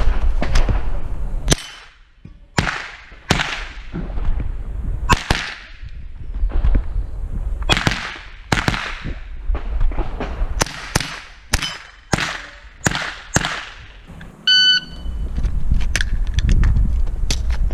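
SIG Sauer 522 SWAT .22 LR semi-automatic carbine fired in a string of a dozen or more shots at uneven spacing, some in quick pairs and runs, each with a short trailing echo. A low rumble comes in near the start and again near the end.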